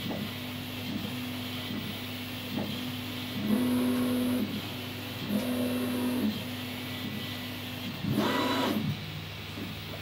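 Desktop computer running: a steady machine hum with a droning tone that keeps breaking off and swells louder twice, and a brief noisier burst about eight seconds in.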